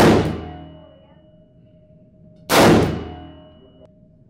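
Sig Sauer M400 AR-15 rifle fired in single shots inside an indoor range: a sharp crack at the start and another about two and a half seconds later, each ringing off the range walls and dying away over about a second, with a third shot right at the end.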